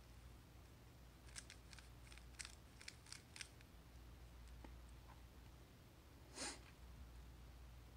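Faint clicks of a stickerless plastic 3x3 speed cube's layers being turned by hand, a quick run of about eight between one and three and a half seconds in. A brief soft rush of noise follows a little after six seconds.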